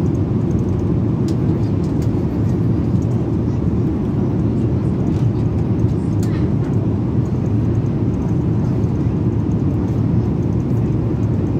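Steady cabin noise of a passenger airliner in flight, heard inside the cabin: an even, loud low rumble of engines and airflow.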